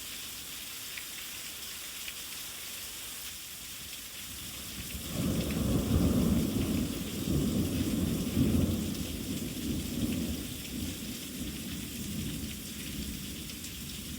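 Steady heavy rain hissing down. About five seconds in, a long rolling rumble of thunder builds, swells twice and slowly fades.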